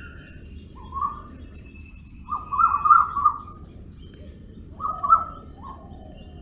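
Short, high-pitched animal calls in three bouts: a brief one about a second in, a louder run of several calls halfway through, and a last pair near the end.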